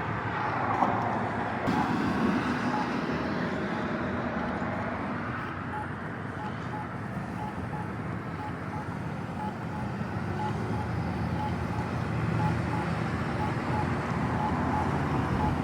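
Campbell accessible pedestrian signal push-button sounding its locator tone, a short pip repeated about once a second, over steady road traffic; the slow repeat marks the don't-walk phase, when the button tells pedestrians to wait.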